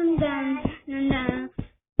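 A child singing a wordless 'dun dun dun' tune, one sustained note stepping down in pitch, with sharp beats along with it. It breaks off briefly near the middle and again just before the end.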